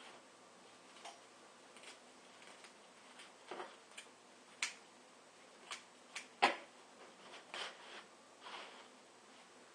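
Faint work noises of an air filter pad being handled and cut: scattered light clicks and soft rustles at irregular intervals, with one sharper knock about six and a half seconds in.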